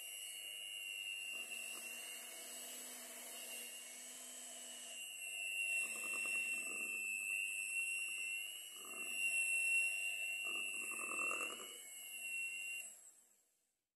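Electric hand mixer running steadily, its beaters whisking thick butter cake batter in a stainless steel bowl, with louder spells of beater noise three times. The motor switches off about a second before the end.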